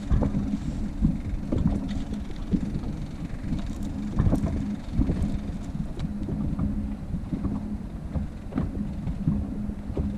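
Wind rumbling and buffeting on the microphone, with a steady low hum under it and scattered light clicks and knocks.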